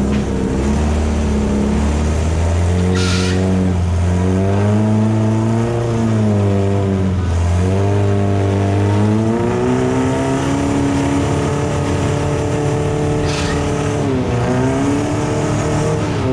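Side-by-side UTV engine running under changing throttle, its pitch gliding up and down as the revs rise and fall. A short hiss cuts in twice, about three seconds in and again about three seconds before the end.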